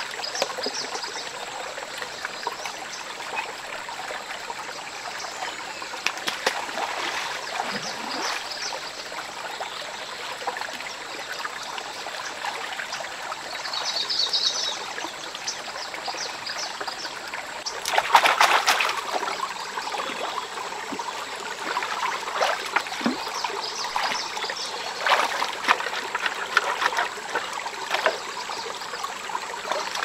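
Shallow rocky stream trickling steadily, with scattered splashes of bare feet wading through the water; the loudest splashing comes about two-thirds of the way through.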